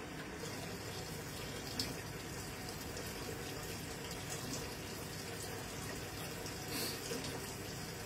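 Water pouring from the inlet of an AQUA AQW-V7N top-loading washing machine into its drum, splashing steadily onto the clothes as the machine fills for the wash. Two brief louder splashes come, one about two seconds in and one near the end.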